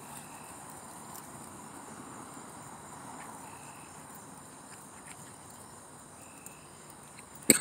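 Night insect chorus: a steady high-pitched trill, with a short, lower call repeating about every three seconds. A single sharp knock near the end is the loudest sound.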